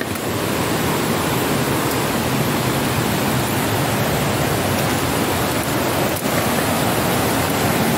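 A waterfall pouring over rocks close by, a steady, even rush of falling water.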